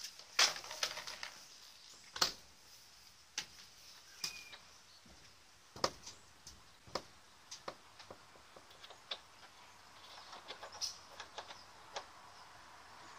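Light, irregular clicks and taps, some close together and some a second or more apart, from the plastic parts and screws of an external TV aerial socket being handled and fitted to a motorhome's side wall.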